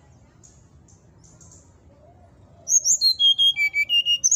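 Brown-chested jungle flycatcher singing: faint high chirps, then, from a little past halfway, a loud phrase of clear whistled notes stepping down in pitch, with a quick rising note near the end.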